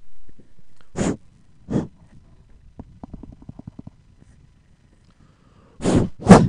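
Puffs of air and a low rumble on an open microphone: four short blasts of noise, the last about six seconds in the loudest, with a faint crackling rumble between them.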